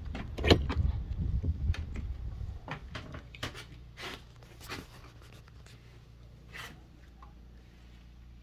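A wooden shed door being opened: a sharp knock about half a second in, with low rumbling over the next couple of seconds, then scattered light clicks and taps.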